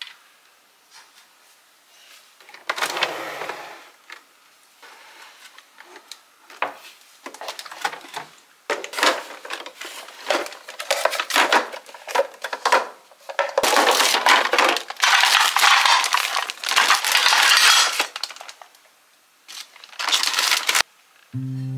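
Handling noise from small plastic kitchen appliances being taken out of a plastic storage bin: scattered clatters and knocks. Between them, a plastic zip-lock bag rustles and crinkles for several seconds.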